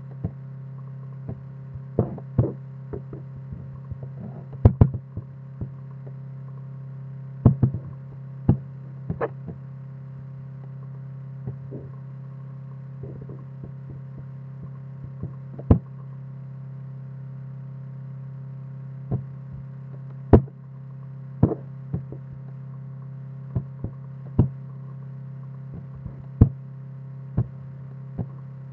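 A steady low hum with irregular sharp clicks and knocks scattered through it.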